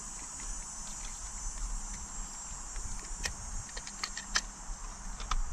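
Scattered sharp clicks and taps from about three seconds in, from parts being handled and fitted while a trolling motor's steering is put back together, over a steady high-pitched background drone.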